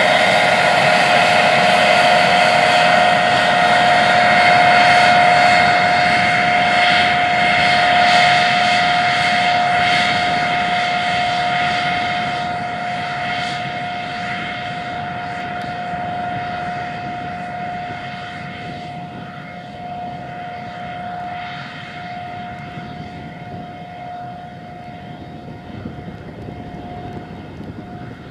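Case IH 620 Quadtrac tractor's 12-litre six-cylinder diesel running steadily under load while pulling a strip-till bar and fertilizer cart through the field, with a steady high whine over the engine note. The sound fades gradually as the rig moves away.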